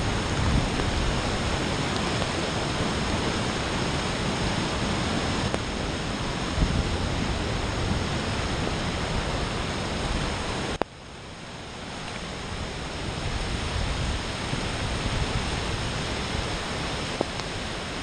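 Steady rushing noise of a river in typhoon flood, turbulent brown floodwater mixed with heavy rain. About eleven seconds in it drops suddenly after a click, then builds back up over the next few seconds.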